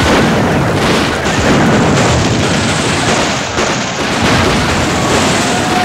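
Film battle sound: a dense, unbroken din of musket fire and cannon blasts.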